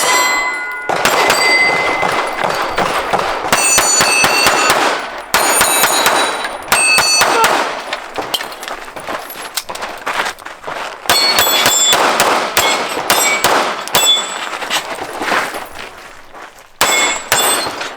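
Pistol shots fired in quick strings at steel targets, the hit plates clanging and ringing with a clear metallic tone.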